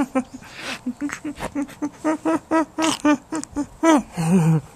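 A baby giggling in a rapid string of short, pitched breathy laughs, about four or five a second, rising in pitch as it goes on. A brief lower voice sound comes near the end.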